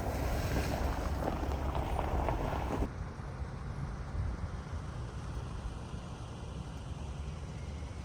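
Car driving, with a steady low road and engine rumble and wind noise on the microphone; the higher hiss drops away suddenly about three seconds in.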